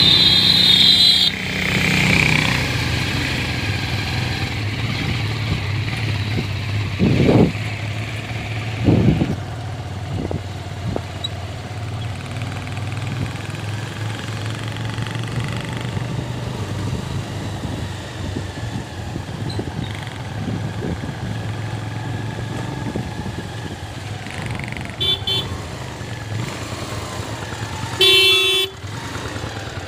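Motorcycle engine running steadily on the move. A vehicle horn sounds for about a second at the start, twice briefly about 25 seconds in, and once more for under a second near the end.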